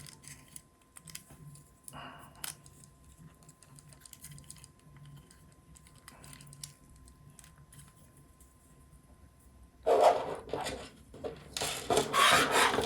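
Hands working screws and a screwdriver into a 3D-printed plastic robot chassis. Faint small clicks and scrapes come first, then louder rubbing and scraping of the plastic parts over the last few seconds.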